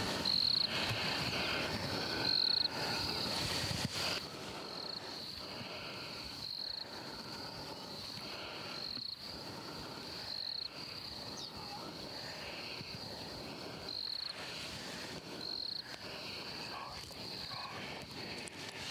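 Insects trilling in a steady high chorus that swells in short pulses every second or so. A louder, rougher low sound lies under it for the first four seconds.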